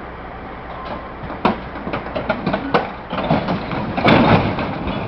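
A heavy engine running, with a series of sharp metallic knocks and clanks from about a second and a half in, and a louder surge of noise around four seconds in.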